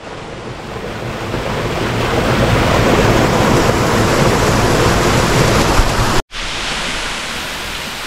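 Small waterfall splashing into its pool: a steady rush of water that swells over the first few seconds, breaks off abruptly about six seconds in, then goes on a little quieter.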